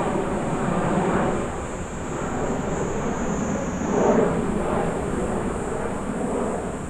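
Twin Rolls-Royce Trent 700 jet engines of a China Eastern Airbus A330-343 climbing out after takeoff, heard as a broad, uneven rumble that swells a little about a second in and again about four seconds in, then fades toward the end.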